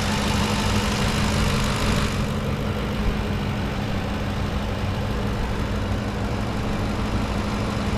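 Ford 5.4-litre V8 in a 2010 F-150 idling steadily and smoothly. It is a healthy-sounding running engine, not one that needs replacing.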